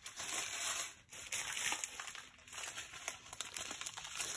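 Small plastic bags of diamond-painting drills crinkling as they are handled.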